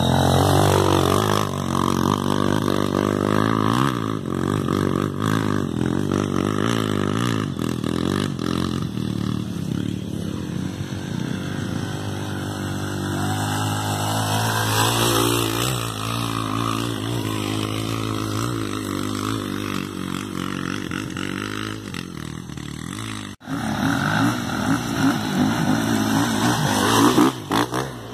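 Small dirt-bike engine revving under load on a dusty hill climb, its pitch rising and falling with the throttle. About 23 seconds in the sound drops out for a moment, then the engine noise resumes.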